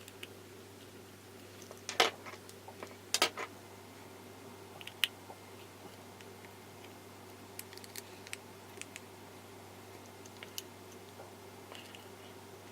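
Small tools clicking and tapping on the opened phone's internals as tiny screws are fitted back in. The louder clicks come about two and three seconds in, then lighter scattered ticks follow, over a steady low hum.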